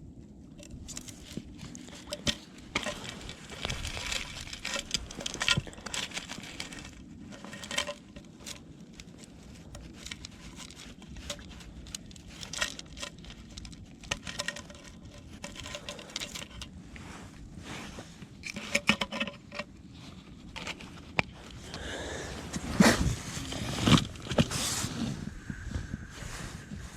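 Close-up handling of fishing tackle in a boat: scattered small clicks, taps and rustling, with a few louder knocks near the end.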